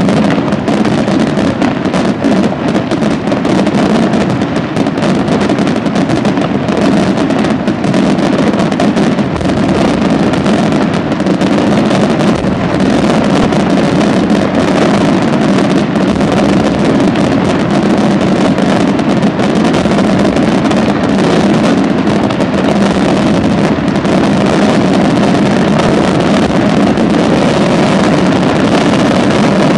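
Professional aerial fireworks display in a dense barrage. Shells and cakes fire and burst so fast that the reports run together into a continuous rumbling roar with crackle.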